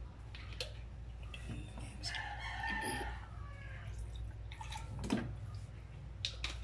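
Raw whole chicken handled in a plastic basin of water while fish sauce is poured over it from a bottle: dripping and a few sharp knocks over a low steady hum. About two seconds in, a drawn-out animal call lasting about a second sounds in the background.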